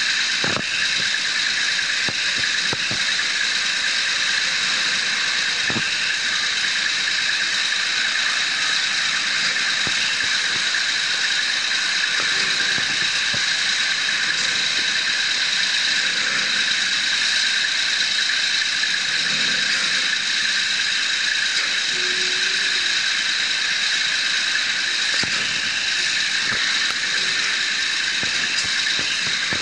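Gin pole trucks' winches and engines running steadily under load as they pull a drilling-rig drawworks up a ramp: a constant high-pitched whine with hiss and a few faint knocks.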